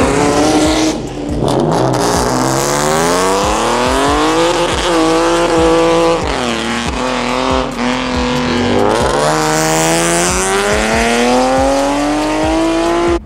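Hyundai Genesis Coupe accelerating hard away, its engine revs climbing, dropping back at each gearchange about five, six and nine seconds in, and climbing again.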